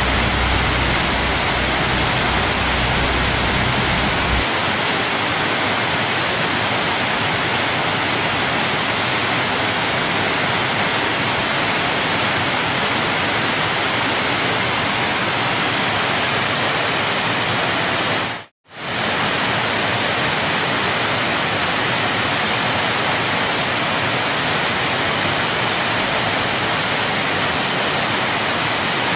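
Steady rushing of a large waterfall, heavy falling water. A deep low rumble under it drops away about four seconds in, and the sound briefly cuts to silence a little past halfway before resuming.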